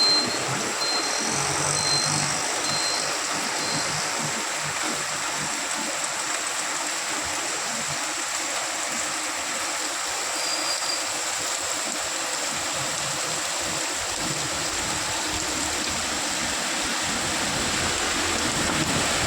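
Heavy rain pouring down in a steady hiss. Over the first few seconds a faint high peep repeats about once a second.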